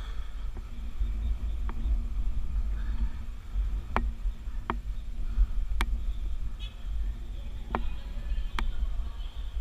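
Wind buffeting the microphone in a steady, fluctuating low rumble, with about six sharp clicks and taps of hands and a wristwatch knocking against the steel bars of a lattice tower while climbing.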